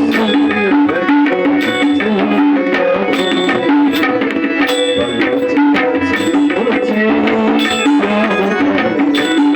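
Tabla playing a steady rhythmic accompaniment to bhajan music, its strokes falling over a sustained pitched melody line.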